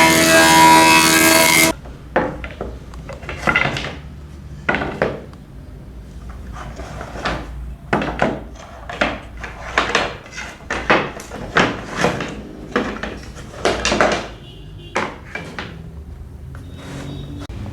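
A woodworking power tool runs loudly and cuts off abruptly about a second and a half in. Then come a long series of short rubbing or scraping strokes on wood, roughly one or two a second.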